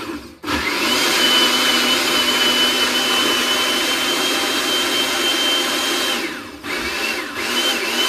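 Electric blender blending a smoothie: the motor whirs up to speed with a rising whine just after the start and runs steadily for about six seconds. Then it stops and is switched on again in short runs near the end.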